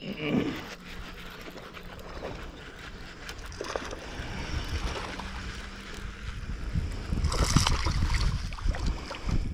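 Wind noise on the microphone, then, about seven seconds in, a largemouth bass strikes a topwater walking bait with a loud splash, and the water keeps splashing for about two seconds as the fish is hooked.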